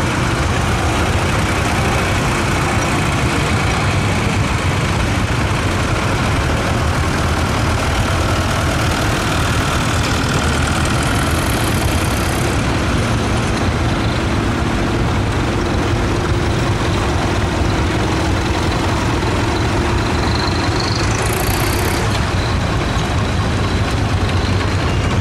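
Old tractor engines running at low revs, a steady loud rumble. A short hiss comes twice, about halfway through and near the end.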